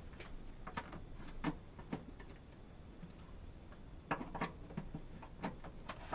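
Scattered light clicks and taps of hand tools and small parts being handled, about seven in all at uneven spacing, several of them between four and six seconds in.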